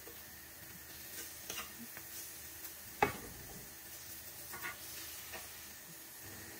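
Food sizzling in oil in a pan, with light scattered clicks from a utensil and one sharp click about three seconds in.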